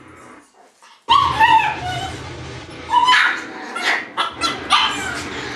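Shiba Inu puppies yipping and whimpering: after a brief hush, a string of loud, high cries falling in pitch starts about a second in and repeats several times.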